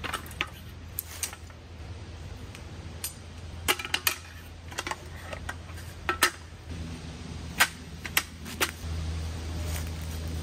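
Folding camp chair's metal frame being unfolded and set up: a run of sharp clicks and clacks as the tubes knock together and snap into place, with handling rustle.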